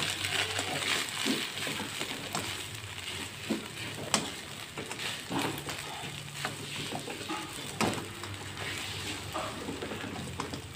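Fried rice with egg and chili being stir-fried in a wok: a steady sizzle, with irregular scrapes and taps of a slotted spatula turning the rice against the pan.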